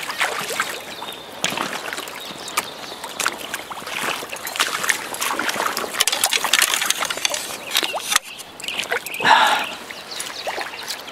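Stream water splashing and sloshing in irregular bursts as a freshly landed brown trout is held in the landing net in the shallows, with a louder splash about nine seconds in, over the steady running of the stream.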